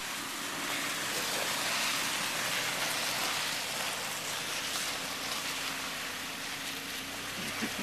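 A steady, even hiss with the faint low hum of a vehicle engine running underneath.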